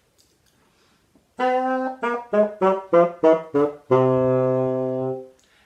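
A tiny child-sized bassoon playing a short phrase, starting about a second and a half in: one held note, then about eight quick detached notes, ending on a long held lower note.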